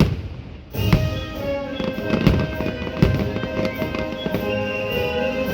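Fireworks going off in a series of sharp bangs, several a few seconds apart, over orchestral show music from the park's speakers.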